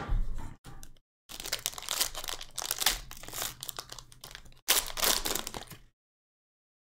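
Foil trading-card pack being torn open and crinkled by hand: loud, crackly rustling in bursts, with a brief pause about a second in, and a last burst that stops abruptly near six seconds.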